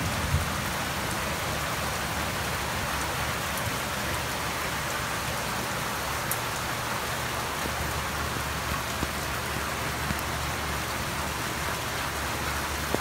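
Steady thunderstorm rain falling, an even hiss with a few sharp ticks scattered through it.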